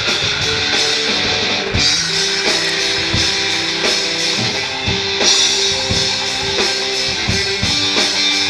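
Background rock music with guitar and a drum kit keeping a steady beat.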